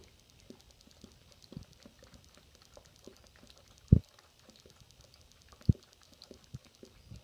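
Dog licking peanut butter off its nose: faint wet tongue clicks and lip smacks, with two sharp thumps about four and six seconds in.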